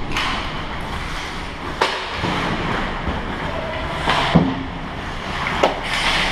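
Ice hockey play on a rink: a steady hiss of skates scraping the ice, with three sharp clacks of stick and puck, about two, four and a half and nearly six seconds in.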